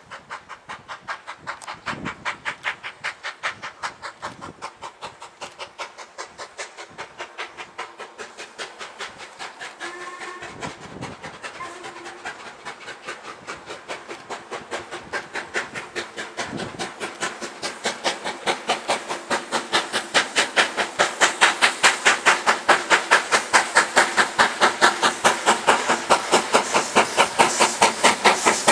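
LMS Black 5 4-6-0 steam locomotive 44767, a two-cylinder engine with Stephenson link valve gear, working hard up a 1 in 49 gradient: even, sharp exhaust beats, about four a second, growing steadily louder as it approaches.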